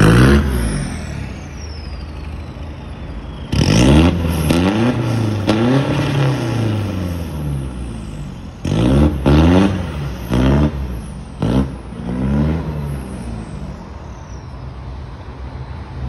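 Isuzu D-Max 3.0 turbodiesel pickup pulling away under hard throttle. The engine revs up and drops back in several surges, like gear changes, while the truck blows black diesel smoke. It fades as the truck drives off near the end.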